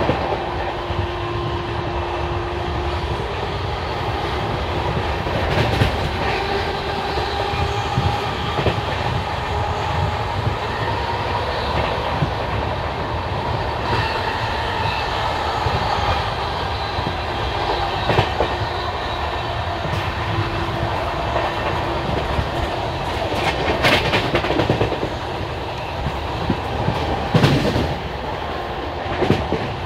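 Indian Railways express passenger train running along the line, heard from on board: a steady rumble of wheels on rail with clickety-clack over the rail joints and a sharp click now and then.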